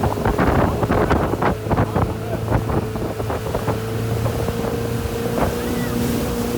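Motorboat engine running with a steady hum, wind buffeting the microphone. A rapid series of knocks or water slaps runs through the first few seconds and then thins out.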